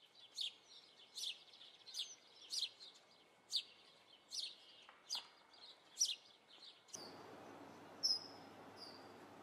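Birdsong in a garden: a bird repeating a short high chirp about once a second. About seven seconds in, a steady outdoor background hiss comes up under a few more bird notes.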